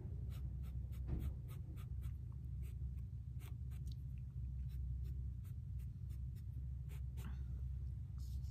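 Foam paint brush dabbing and stroking paint onto a painted wooden board: a run of light, irregular taps and scrapes, over a steady low hum.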